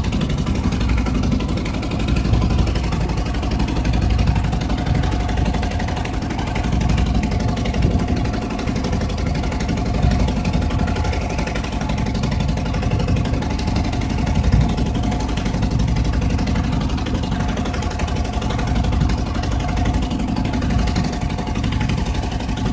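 Small fishing boat's engine running steadily at a constant speed, a continuous drone with a steady hum over low rumble.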